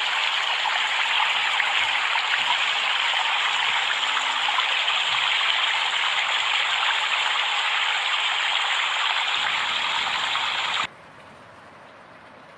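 Steady rushing noise of flowing water, which cuts off abruptly near the end and leaves a faint hiss.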